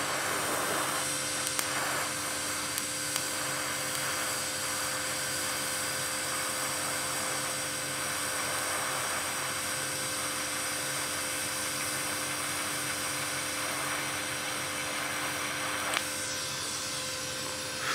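Vevor 210A TIG welder's arc burning steadily while a bead is run on a lower amperage setting: an even hiss with a faint steady hum. The sound thins out about two seconds before the end as the arc is brought down.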